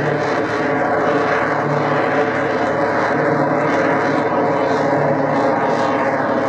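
Aerobatic biplane's piston engine, rated at over 400 horsepower, running steadily with its propeller as the plane climbs nearly vertically.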